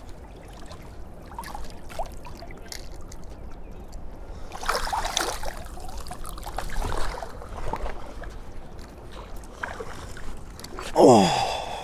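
Water sloshing and splashing, with two louder swells midway and a few faint knocks.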